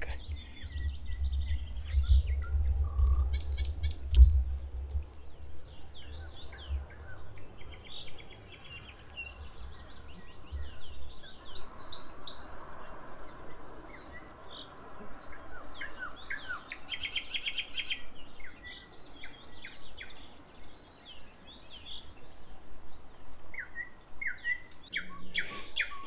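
Nightingales singing: a mix of short whistles, chirps and a fast run of repeated notes. During the first few seconds there is a low rumble from the camera being handled, with one loud knock about four seconds in.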